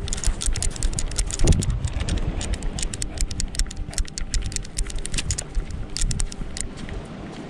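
Action camera strapped to a running dog, jostling: rapid irregular clicking and rattling from the mount, over a steady low rumble of rubbing and wind on the microphone.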